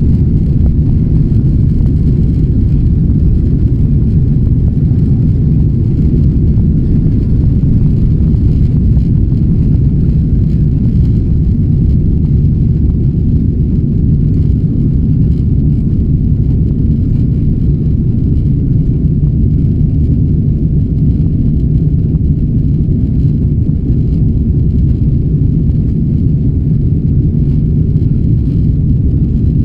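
Steady low rumble of a Boeing 777-200's engines and airflow, heard inside the cabin during the climb after takeoff.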